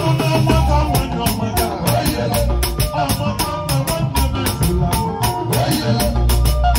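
Live band music driven by a drum kit played with sticks: quick, steady drum and cymbal strikes over bass and melody.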